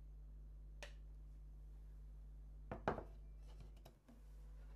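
Ceramic plates handled on a stainless steel counter as they are picked up: a faint click about a second in, then a short cluster of sharp knocks and clinks just under three seconds in, over a low steady hum.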